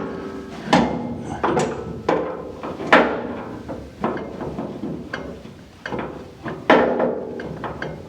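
Irregular metal knocks and clanks, each ringing briefly, roughly a dozen over several seconds, as the steering shaft's splined bottom universal joint is worked onto the steering rack's input shaft.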